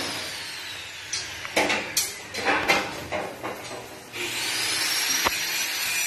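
A motor's high whine slowly winding down with several knocks and short rattles, then spinning back up about four seconds in.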